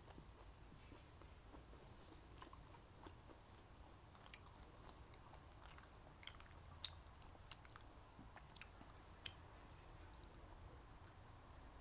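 Faint chewing with scattered sharp clicks of wooden chopsticks against a porcelain rice bowl, the loudest click about seven seconds in.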